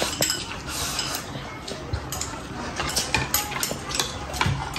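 Metal spoon and chopsticks clinking and scraping against ceramic bowls while eating, as a series of small scattered clicks.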